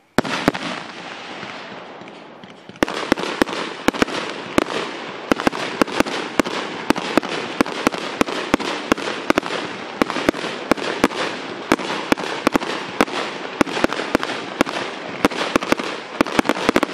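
Fireworks display: a sudden loud burst with two sharp cracks at the start, fading into a hiss, then from about three seconds in a dense run of sharp cracks and pops over a steady rushing noise.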